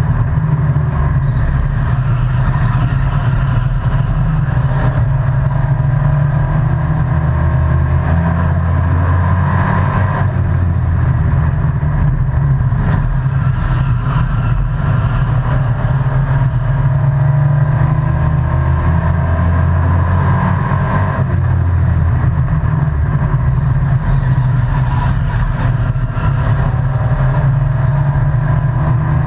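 A stock-car-style race truck's engine at racing speed, heard from inside the cab. The revs rise and fall through the laps, easing off briefly about ten seconds in and again about twenty seconds in.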